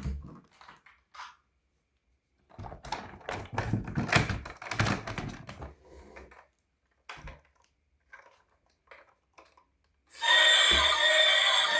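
Hard plastic toy parts clicking, knocking and clattering as a toy is handled, with a busy rattling stretch in the middle. Near the end a loud electronic jingle begins.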